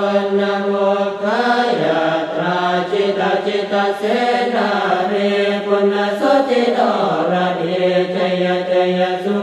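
Thai Buddhist chanting in Pali, verses recited in long held tones that step in pitch at each new phrase.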